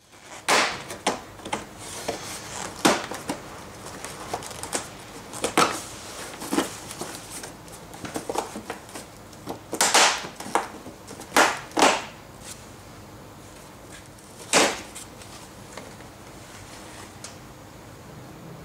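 Plastic side molding cover of a Honda Lead 50/100 scooter being pulled off its body by hand: a run of irregular clicks and sharp snaps as its clips let go, with plastic rubbing between them. The loudest snaps come in a cluster in the middle and once more a few seconds later.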